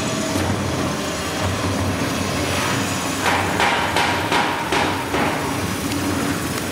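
Airport luggage stretch-film wrapping machine running, with a steady low motor hum. About halfway through, a run of regular knocks sets in, two or three a second.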